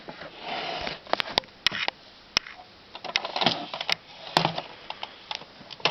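Adler Tippa-S portable typewriter clicking and knocking: about six sharp, irregularly spaced clicks, with two short stretches of scraping between them.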